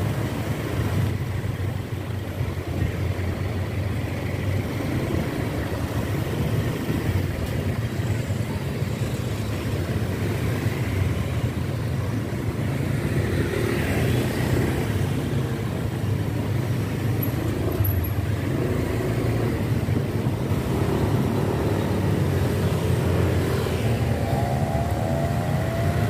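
Street traffic from close by: a steady low rumble of engines and tyres, with motorbikes and cars passing.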